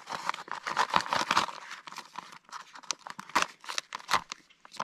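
A foil meal pouch crinkling and crackling as a small knife blade saws and snips its way through it, in a run of uneven crunchy cuts with a short pause near the end.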